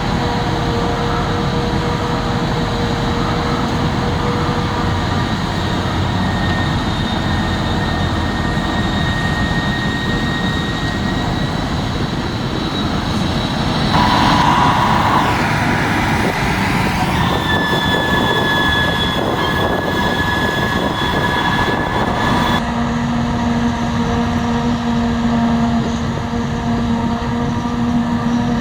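Heavy diesel farm machinery, a forage harvester and tractors, running steadily under load during maize harvesting. The sound changes abruptly about halfway, with a louder rushing stretch for a few seconds, and again near the end to a different steady engine hum.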